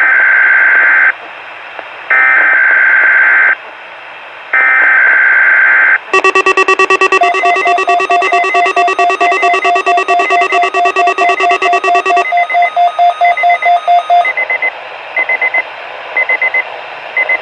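Weather radio alert test: three short bursts of screeching digital SAME header data, the coded signal that triggers alert-equipped receivers. Then the receivers' alarms go off with rapid beeping in several pitches, which drops out in stages and ends in a few scattered beeps.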